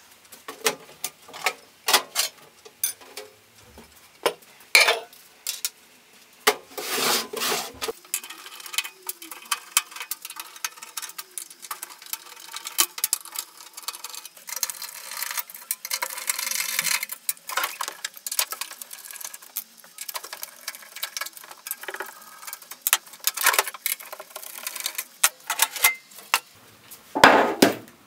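Screwdriver backing screws out of a microwave oven's sheet-metal casing and the cover being worked loose: irregular metal clicks, scraping and short rasping runs, with a louder knock near the end.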